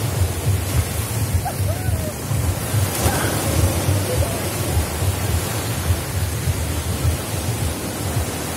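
Sea waves breaking and washing in over a sandy shore, a steady rushing noise, with wind buffeting the microphone in a low, uneven rumble.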